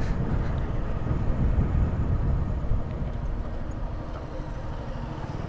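A motorcycle being ridden on the road: a steady low rumble of engine and road noise, with no single sound standing out.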